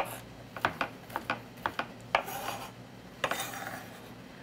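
Chef's knife chopping fresh mint on a wooden cutting board: a run of uneven, sharp knocks, with two longer rasping strokes about two and three seconds in.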